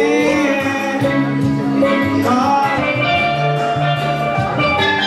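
Music playing throughout, with a singing voice gliding over the instruments.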